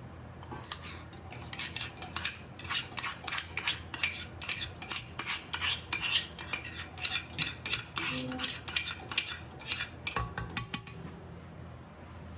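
A utensil clinking and scraping against a mixing bowl over and over, several sharp clicks a second, as ingredients for donut dough are stirred. The clicking stops near the end.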